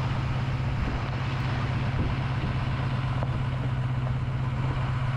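Pickup truck driving on a gravel road while towing a fifth-wheel camper trailer: a steady low engine drone under even road and tyre noise.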